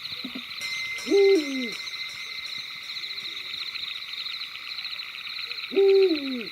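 An owl hooting twice, about four and a half seconds apart, each hoot a single call sliding down in pitch. Under the hoots runs a steady, high, rapidly pulsing trill.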